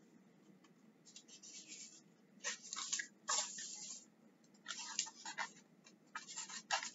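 Soft rustling of a paperback picture book's pages being handled, in several short bursts.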